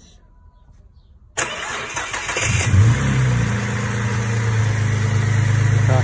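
Holden Commodore VZ six-cylinder engine cranked by its starter, started by pressing the starter relay closed by hand to get round an ECU that fails to ground the relay. After about a second and a half of quiet it cranks for about a second, catches, revs up briefly and settles into a steady idle.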